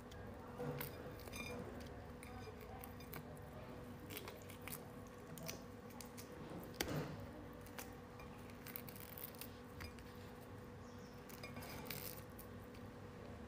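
Faint, scattered crackles and clicks of a cooked starfish's hard, spiny skeleton being broken and picked apart by hand, with one sharper snap about seven seconds in. A steady faint hum runs underneath.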